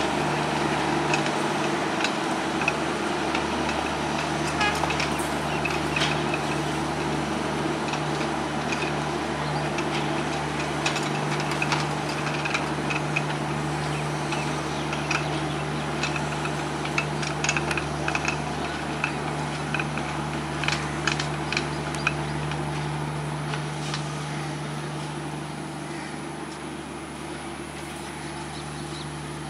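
Broad-gauge diesel-hauled passenger train rolling away, with a steady drone and a run of sharp wheel clicks over the rail joints in the middle, the whole sound slowly fading as it leaves.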